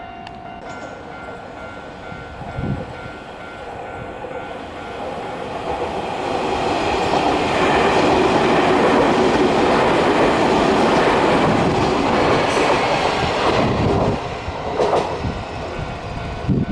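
Keio Inokashira Line electric train passing over a level crossing. Its rolling noise builds over several seconds, stays loud for about six seconds and falls away about fourteen seconds in. Steady tones from the crossing's warning bell are heard at the start.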